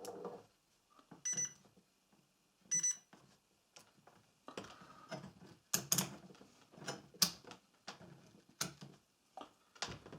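Fluke 87V multimeter's continuity buzzer giving two short beeps about a second and a half apart as the test-lead tips are touched together. A run of sharp clicks and knocks follows from handling the meter and leads.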